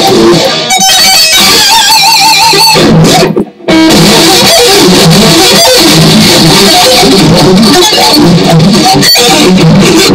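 Les Paul electric guitar played loud: a held note with wide vibrato about two seconds in, a short break in the sound at about three and a half seconds, then continued strummed riffing.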